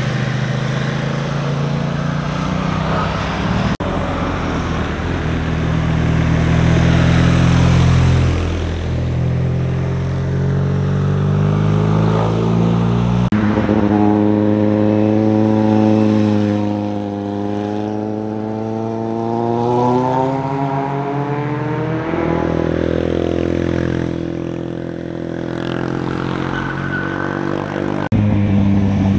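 Motorcycle engines passing through a hairpin bend in a series of short takes, each bike running on and off the throttle. About halfway through, one engine rises steadily in pitch as it accelerates.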